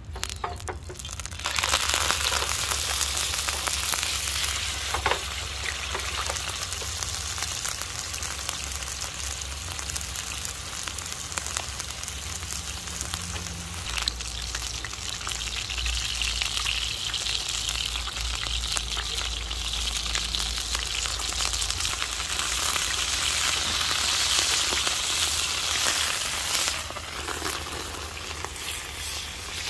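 Meat frying in hot oil in a pan on a portable gas camp stove: a steady sizzle that starts suddenly about a second and a half in and grows louder again near the end.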